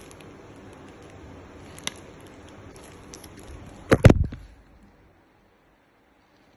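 Handling knocks from a lid that doesn't fit, being worked at: a single click about two seconds in, then a loud clatter of several knocks about four seconds in, after which it goes nearly silent.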